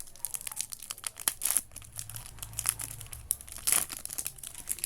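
Foil wrapper of a Magic: the Gathering booster pack crinkling and crackling as it is torn open by hand, a dense run of irregular sharp crackles.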